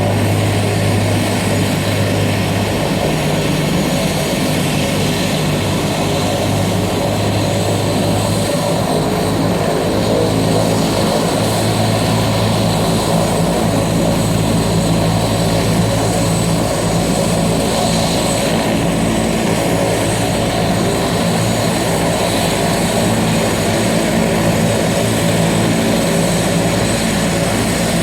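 Helicopter running steadily: engine and rotor noise with a steady low hum.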